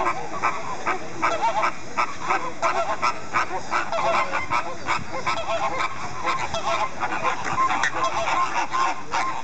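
A flock of flamingos honking: many short calls overlap in a continuous chatter.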